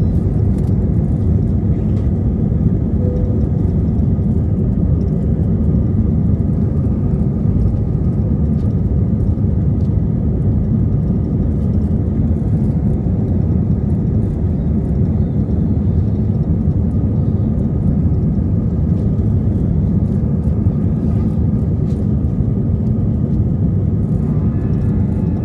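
Cabin noise of an Airbus A320 climbing out after takeoff, heard from a window seat: its twin turbofan engines make a steady deep rumble, with faint steady whining tones above it.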